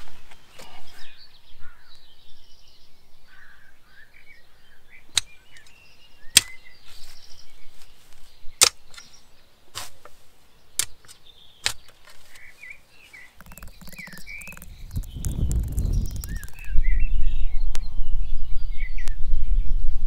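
Birds chirp in the background while a spade knocks against clay roof tiles being set upright around a hole in the ground: about six sharp knocks, spaced a second or so apart. Past the middle, a loud low rumbling noise from the work in the soil takes over and grows louder.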